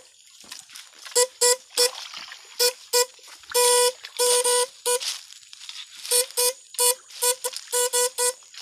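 Homemade electrofishing rig buzzing in short, irregular pulses at one steady pitch, with a longer buzz about three and a half seconds in, as the current is switched on and off into the water.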